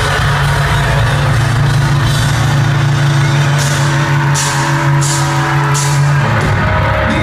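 Live hard-rock band holding a loud sustained chord with four cymbal crashes in quick succession about three and a half seconds in. The chord cuts off about six seconds in, leaving crowd noise and voices.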